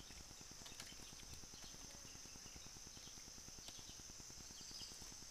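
Faint steady high-pitched insect drone from the forest, over a low, rapid pattering of stream water, with a few small clicks.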